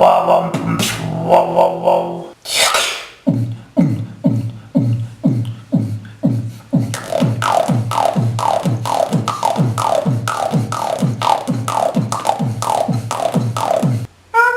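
Beatboxer imitating sound effects with his mouth: a short noisy whoosh, then a steady run of short sounds, each falling in pitch, about two and a half a second, which stops just before the end.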